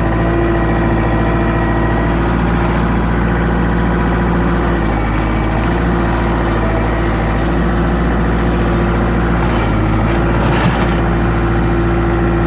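Diesel engine of a compact tractor-loader-backhoe running loud and steady at an even speed.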